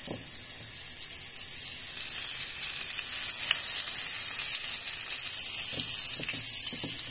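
Floured pieces of zander (pike-perch) sizzling as they fry in hot oil in a frying pan, a steady high hiss that gets louder about two seconds in. A few faint soft knocks near the end.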